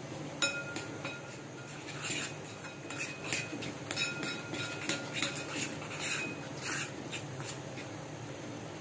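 A metal spoon stirring a thick spice paste in a bowl. There is one clink with a short ring about half a second in, then repeated scrapes and clinks of the spoon against the bowl for several seconds, tailing off near the end.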